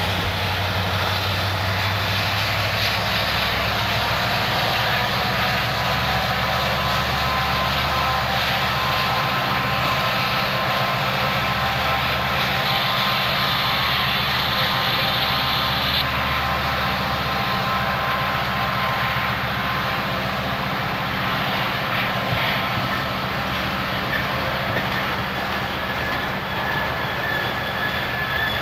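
Freight train of autorack cars rolling by with a steady rumble of diesel locomotive engines and a continuous rush of wheels on rail. A thin high wheel squeal comes in near the end.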